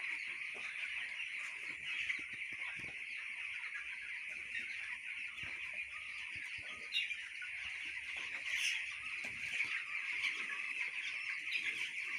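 A flock of two-week-old broiler chicks peeping all together, a steady chorus of many overlapping high calls.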